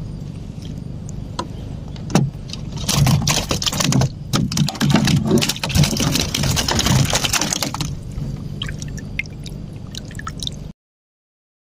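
Water splashing and knocking, with handling noise, as a speared fish is brought from the water into a small outrigger boat. A steady low hum runs underneath, and the sound cuts off suddenly near the end.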